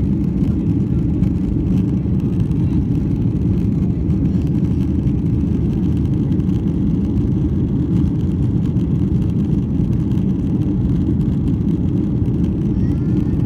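Steady, low-pitched cabin noise of a Boeing 737-900 climbing after takeoff: its CFM56-7B turbofans and the rushing air heard from inside the passenger cabin.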